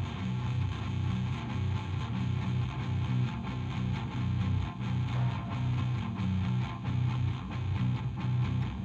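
Background music led by electric guitar over a steady bass beat.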